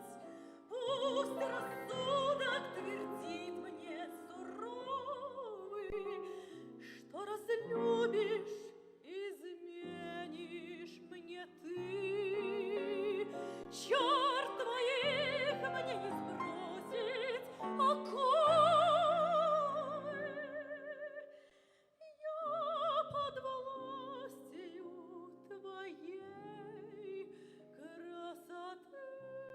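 A classically trained voice sings a Russian romance with strong vibrato, accompanied by piano. The singing stops briefly about three-quarters of the way through, then starts again.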